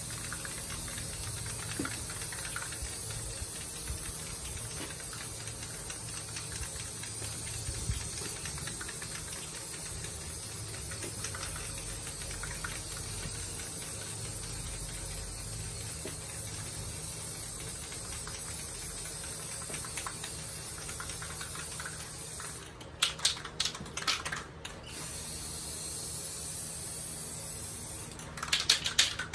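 Aerosol spray can of clear coat spraying in a long steady hiss. About 23 seconds in the spraying stops and the can is shaken, its mixing ball rattling. A few more seconds of spray follow, then more rattling shakes near the end.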